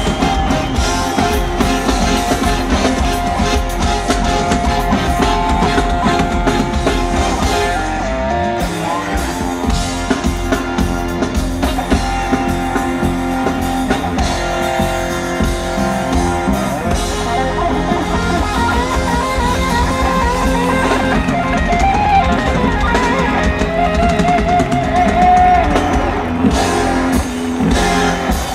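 Instrumental reggae band music with electric guitar, strong bass and drum kit playing continuously, with no singing.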